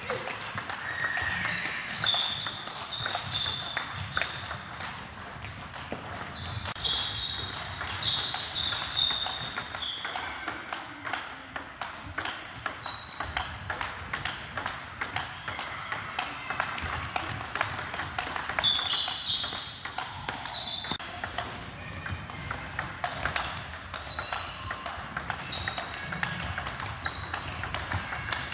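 Table tennis balls being struck by bats and bouncing on the table in continuous fast rallies, a rapid string of sharp clicks and pings.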